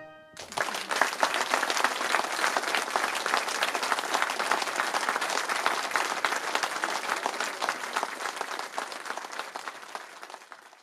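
Theatre audience applauding: dense clapping that starts about half a second in and fades away near the end.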